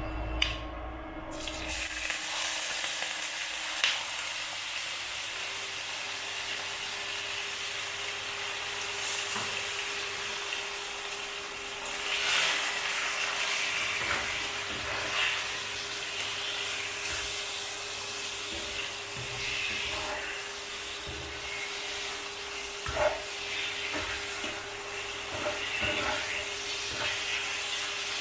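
Pork belly pieces sizzling in hot oil and caramelised sugar in a wok. The sizzle starts abruptly about a second in as the pork goes in. It then runs steadily while a wooden spatula stirs, with now and then a scrape or knock of the spatula against the pan.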